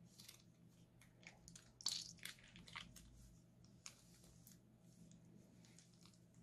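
Faint, irregular crackling and squelching as a plastic piping bag is squeezed, pushing slime out of its tip into a bowl of slime, with the loudest cluster of crinkles about two seconds in.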